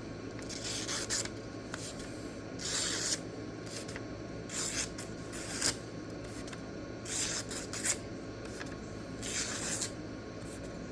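Sharpened knife edge slicing through paper in a series of about six short strokes, each a brief hissing rasp, a second or two apart: the edge-sharpness test, the blade cutting cleanly.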